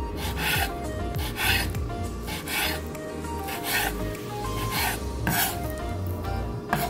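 Kitchen knife slicing raw pork into thin strips on a wooden cutting board: a run of short scraping cuts, about two a second.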